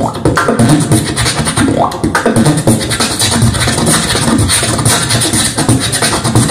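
Live beatboxing through a microphone and PA: a fast, steady mouth-made beat of low thumps and sharp clicks with hissing, hi-hat-like sounds. About two seconds in, a short rising vocal glide cuts through the beat.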